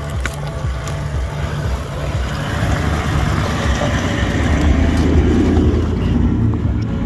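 Toyota LandCruiser 79 Series engine running at low speed as the ute crawls over loose rock and passes close by, with the tyres crunching on the stones. It grows louder to a peak about five seconds in as the rear and exhaust go past, then eases off.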